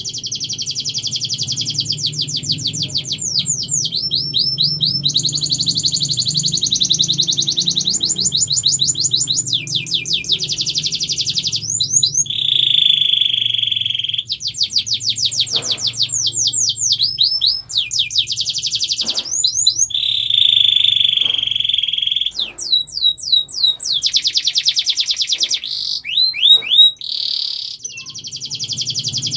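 Domestic canary singing a continuous song of fast trills and rolls, each a rapid run of repeated notes, broken by a few held, buzzy lower rolls. A steady low hum runs underneath.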